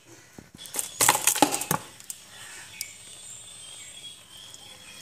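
Cooking oil poured in a thin stream onto raw carrots, beetroot and split lentils in a pressure cooker, a soft steady pour. A cluster of sharp clicks and clinks about a second in is the loudest part.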